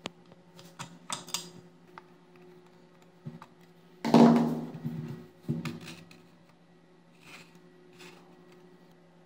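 Vintage metal blower's impeller spun by hand: light clicks of handling, then about four seconds in a sudden metallic whir that fades over about a second, and a second, shorter spin soon after.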